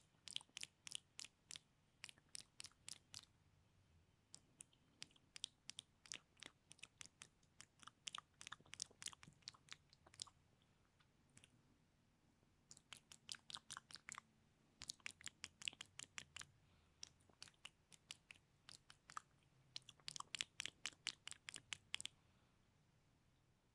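Close-miked ASMR mouth sounds: quick runs of wet clicks and pops from the lips and tongue, broken by short pauses.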